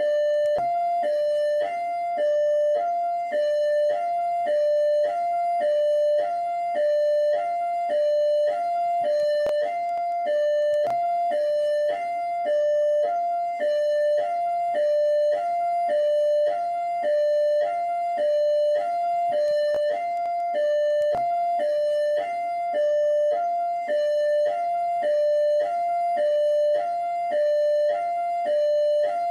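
Rio de Janeiro Military Police (PMERJ) hi-lo siren: an electronic siren alternating evenly between a higher and a lower tone, about one high-low pair a second.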